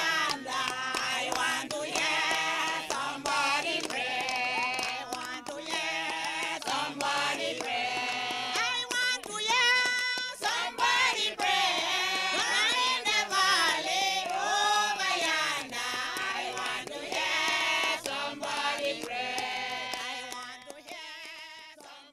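Music with voices singing, a choir-like group sound, fading out near the end.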